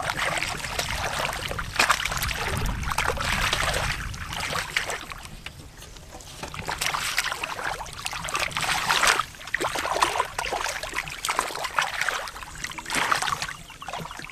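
Hands sloshing and splashing through shallow muddy water while groping for fish, in repeated bouts with trickling between them and a quieter spell about five seconds in.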